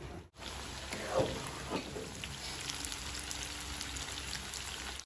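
Squares of tofu shallow-frying in oil in a saucepan, sizzling and crackling steadily, with two louder pops between one and two seconds in.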